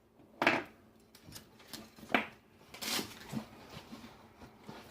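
Hand tools and parts being handled and set down on a table: a few clunks and metal clatters, the loudest about half a second in and just after two seconds, with lighter knocks and rustles between.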